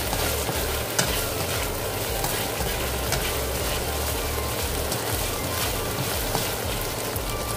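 Food sizzling as it browns in hot oil in a frying pan, a steady fry with a few sharp crackles.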